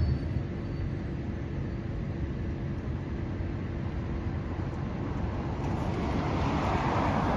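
Road traffic noise: a steady low rumble, with a vehicle passing on the road that swells and is loudest near the end.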